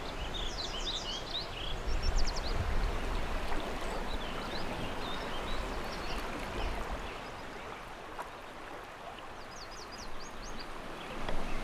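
Steady rush of a flowing river, with birds singing over it in short quick series of high chirps near the start, around four seconds in and again near the end.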